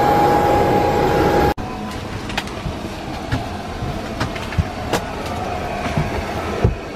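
Loud steady aircraft noise with a steady high whine, heard at an airliner's entry door. About a second and a half in it cuts to a quieter steady cabin hum with a few light knocks.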